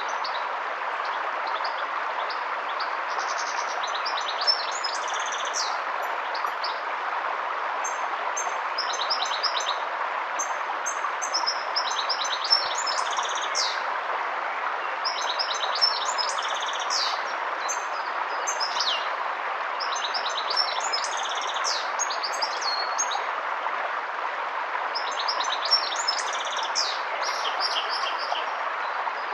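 Steady rush of a river, with a songbird singing phrases of quick, high chirps every few seconds over it.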